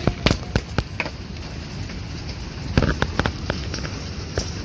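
Rain falling, with drops striking a surface at irregular intervals over a steady hiss, and a cluster of drops about three seconds in.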